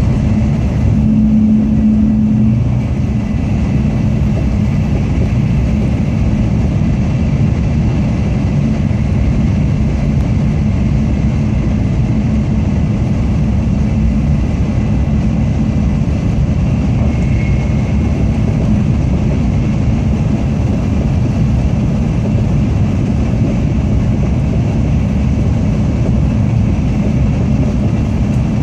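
Inside the cabin of a Tokaido Shinkansen Kodama train, its running noise is a steady low rumble with a low hum.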